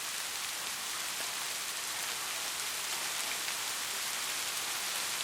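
Steady rainfall: an even hiss of rain with scattered individual drops ticking on a surface.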